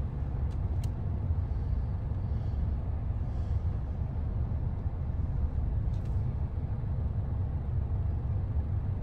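Steady low rumble of a car idling while stopped, heard from inside the cabin, with a few faint scattered ticks.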